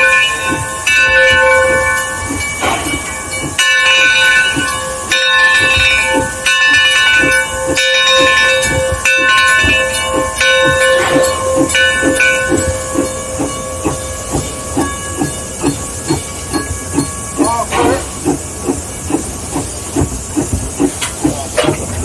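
Mason Bogie 0-6-4T steam locomotive heard from the cab: its steam whistle sounds in a series of blasts for the first twelve seconds or so, then stops. Underneath, the exhaust chuffs at a steady beat and steam hisses as the engine runs.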